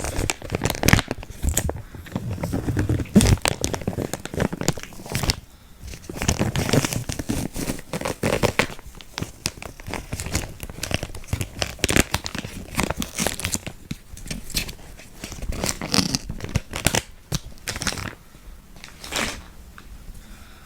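Fetal Doppler probe being moved over skin, giving loud, irregular crackling and scraping contact noise with no clear heartbeat, easing off near the end.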